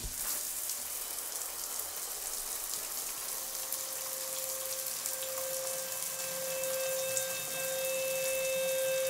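Steady crackling hiss like heavy rain. About three and a half seconds in, a held musical tone fades in under it and slowly grows, with fainter higher tones joining.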